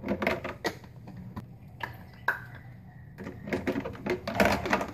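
A run of light clicks and knocks from small objects being handled, over a low steady hum, with a denser clatter about four seconds in.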